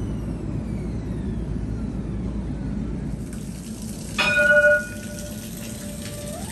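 Light rail vehicle's electric traction motors whining, the pitch gliding down as it slows. About four seconds in its gong sounds one short ringing ding, the loudest thing here. Near the end the whine starts to rise again as it accelerates.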